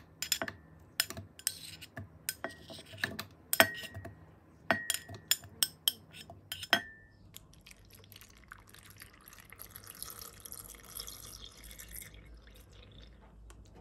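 Glassware clinking and knocking about a dozen times, several strikes ringing briefly. Then liquid pours for about five seconds.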